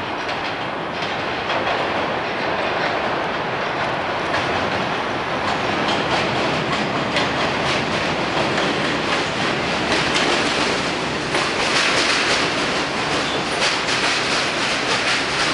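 R62 subway train pulling into a station: steady rumble of steel wheels on the rails with repeated clicking over the rail joints, loudest about ten seconds in as the cars run past close by.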